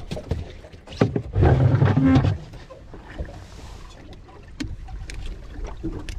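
Light clicks and knocks of pliers and hook against a small red sea bream on a boat's deck mat as it is unhooked, with a loud low rumble about a second and a half in.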